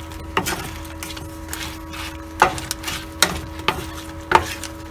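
Wooden spatula stirring shrimp in a nonstick frying pan, knocking and scraping against the pan several times, about once a second, over a faint sizzle of the butter sauce and a steady hum.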